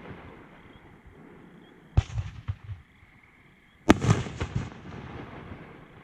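Aerial firework shells bursting: two sharp bangs about two seconds apart, each followed by a few smaller cracks and a rumbling echo that dies away.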